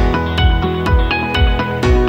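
Background music with a steady beat, a low thump about twice a second under sustained chords.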